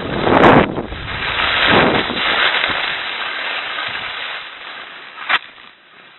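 Rushing noise of skiing downhill: wind on a phone microphone and skis sliding over packed snow, coming in swells and dying down near the end. There is a single sharp click about five seconds in.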